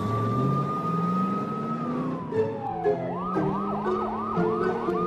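Police car siren: a long wail that rises slightly and then falls about two seconds in, then switches to a fast yelp of rising-and-falling sweeps, about three a second.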